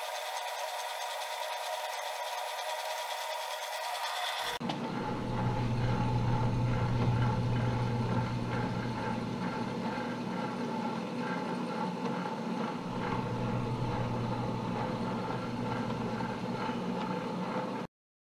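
Atlas QC54 metal lathe running under power, its carriage driven along the leadscrew through 3D-printed PLA half nuts; a steady mechanical running hum. About four and a half seconds in the sound changes abruptly to a louder, fuller running hum, and it cuts off suddenly just before the end.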